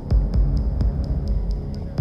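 Electronic background music with a steady beat: a high tick about four times a second over sustained low tones and a deep bass pulse.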